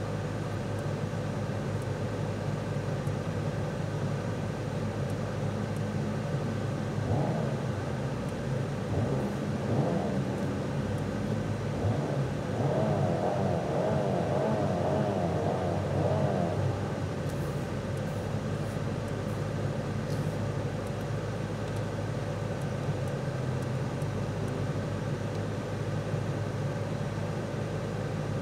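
Cabin hum of a Mercedes C 300's 2.0-litre turbocharged four-cylinder idling, steady throughout. In the middle, a wavering pitched sound rises over the hum for about ten seconds and then fades.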